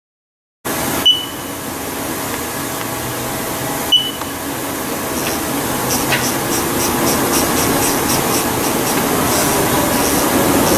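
Haas TL-2 lathe's four-station automatic turret toolpost working over the machine's steady hum: two sharp clicks about three seconds apart, each with a brief high ping, then faint ticking at about three a second in the second half. It sounds nice and quiet, with a newly replaced tool-changer actuator.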